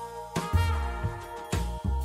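Background music with held brass-like tones over a heavy bass beat.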